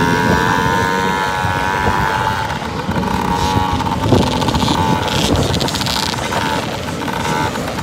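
Several 65cc two-stroke motocross bike engines running hard as they race around the dirt track, a high-pitched engine note that dips slightly about two seconds in.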